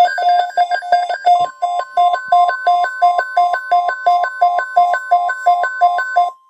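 Weather alert beeping, a two-pitch pulse repeating about three times a second. About a second and a half in, NOAA Weather Radio's steady 1050 Hz warning alarm tone joins it, signalling an alert before the watch message is read. The beeping stops just before the end while the tone holds.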